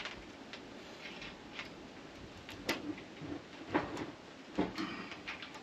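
Scattered light clicks and ticks of rigging wire strands and small metal fitting parts being handled as the strands are worked around a Sta-Lok terminal's former, with three louder clicks in the second half.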